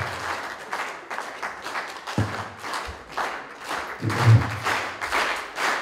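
Audience clapping and applauding, with a couple of short low thumps.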